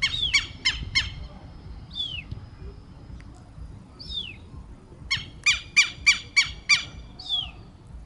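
Southern lapwings calling: two bursts of harsh, rapidly repeated squawking notes, four at the start and six from about five seconds in. Between them, a short falling whistle repeats every couple of seconds.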